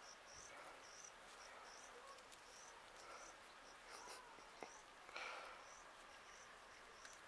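Faint cricket chirping, repeated evenly at about two chirps a second, with a brief soft rustle about five seconds in.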